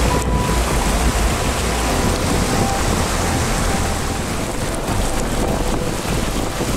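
Muddy floodwater rushing across a road in a steady, loud wash of water noise, with a low rumble underneath.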